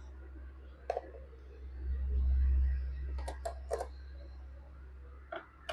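Small sharp clicks and taps of a screwdriver and tools on the plastic bottom case of an Asus A407 laptop as its screws are removed, with a low handling rumble. One click comes about a second in, a quick cluster of three or four around three and a half seconds in, and another near the end.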